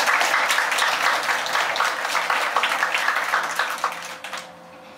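Audience applauding with a steady patter of many hands, dying away about four seconds in.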